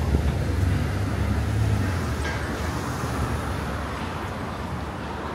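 Street traffic: the low rumble of a passing vehicle that slowly fades away, over steady city road noise.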